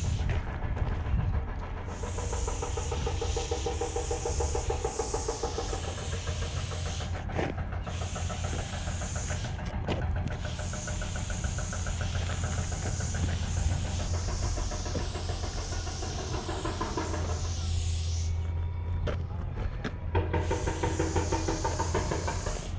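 Aerosol spray paint hissing through a four-needle skinny cap adapter in long strokes. It starts about two seconds in, breaks off briefly twice, and pauses for nearly two seconds near the end before spraying again.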